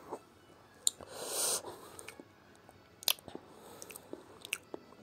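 Close-up chewing of a steamed pork momo (dumpling), with a few sharp wet mouth clicks and a short hiss about a second and a half in.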